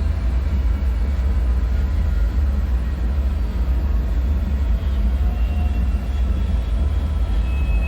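Steady deep rumble of a dark bunker ambience drone, with a faint thin metallic whine coming in near the end.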